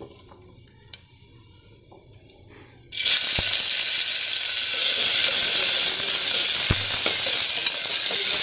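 Chopped onions dropped into hot oil in an aluminium pressure cooker: a loud, steady sizzle starts suddenly about three seconds in and keeps going as they are stirred. Two sharp knocks cut through it, about a third of the way through the sizzle and again later.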